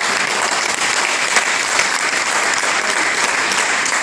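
Audience applauding: many hands clapping at once in a dense, steady mass.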